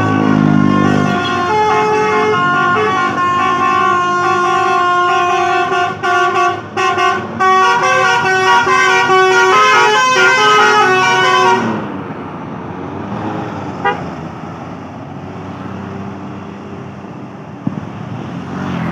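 Basuri 'telolet' bus horns playing loud, stepping multi-note tunes, several notes sounding at once, with short breaks about six seconds in. About two-thirds of the way through they cut off suddenly, leaving the rumble of the passing buses.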